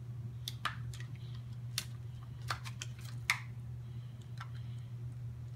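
Small plastic toy pieces clicking and tapping as they are handled and pressed together during assembly: about ten irregular sharp clicks over a steady low hum.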